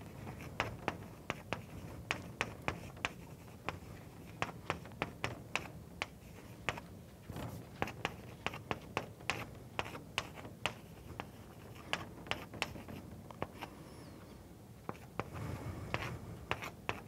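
Chalk writing on a blackboard: a run of short, sharp taps and scratches, irregular at about one to three a second, as an equation is chalked stroke by stroke, with a brief lull near the end.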